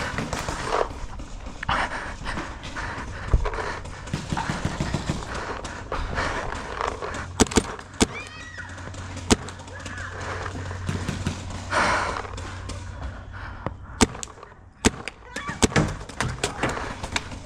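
Paintball markers firing scattered single shots: sharp pops a few seconds apart, sometimes two or three in quick succession, over rustling movement noise.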